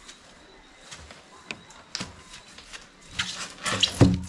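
Large block of expanded polystyrene foam being handled: a few light crackles, then a rush of rubbing with a short squeak, ending in a heavy thump about four seconds in.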